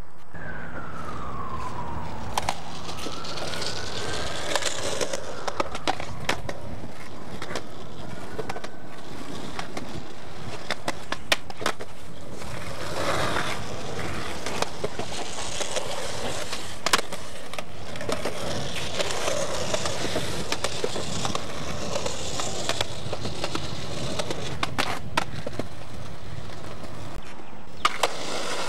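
Skateboard wheels rolling on smooth concrete, with sharp clacks of the board's tail pops and landings scattered throughout. A few faint gliding squeaks sound in the first seconds.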